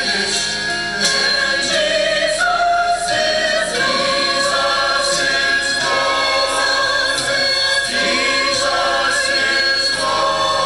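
Mixed church choir of men and women singing together.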